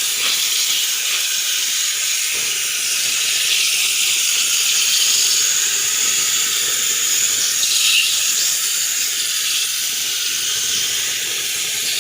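Steady hiss of a water jet spraying an indoor air-conditioner unit as it is washed.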